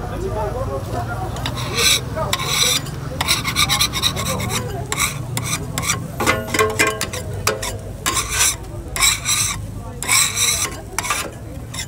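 Repeated short rasping, scraping strokes that come in uneven spurts, with a brief ringing tone in the middle, over a steady low hum.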